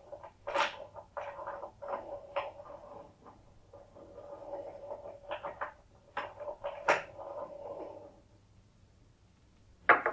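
Small wooden two-peg toy car pushed through the grooves of a wooden board, its pegs scraping and clicking against the wooden channel in irregular spells with a few sharper knocks. It stops about eight seconds in, and near the end there is a short, sharp knock as the car is set down on the table.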